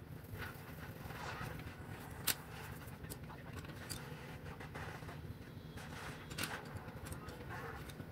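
Soft scratching of a colored pencil shading on paper, then a few sharp clicks as pencils are handled and swapped, over a steady low hum.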